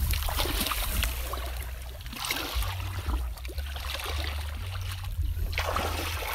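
Shallow muddy water sloshing and splashing as a person wades and gropes with his hands through it, in uneven surges, over a low steady rumble.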